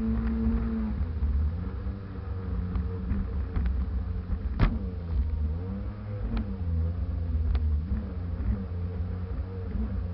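Sea-Doo personal watercraft engine running. Its steady note drops about a second in, then rises and falls as the throttle changes. One sharp knock comes about four and a half seconds in.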